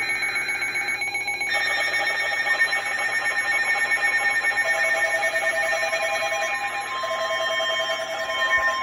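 Electronic emergency alert tones from a weather-radio broadcast: several steady tones sounding together with a fast pulsing, the mix shifting about a second and a half in and again midway, with a further tone joining near the end.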